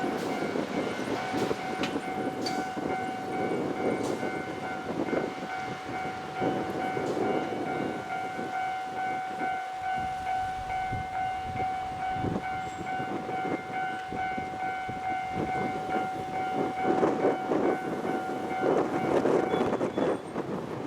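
Level crossing warning alarm ringing at one fixed pitch while a Kanto Railway KiHa 2300 diesel railcar accelerates toward the crossing. The railcar's engine and wheel noise grows louder near the end as it passes, and the alarm stops shortly before the end.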